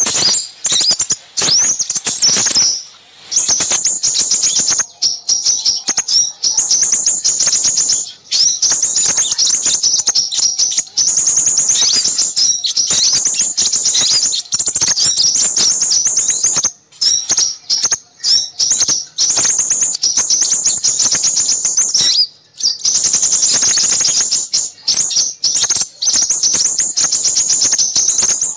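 A dense, noisy chorus of small birds chirping and twittering rapidly at high pitch, nearly without pause, with a few brief breaks. It is a lure recording of small-bird calls used to attract crimson sunbirds.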